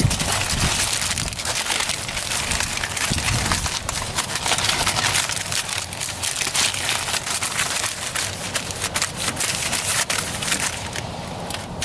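Aluminium foil crinkling and crackling as it is folded and crimped around a pan, a dense run of sharp crackles that thins out near the end.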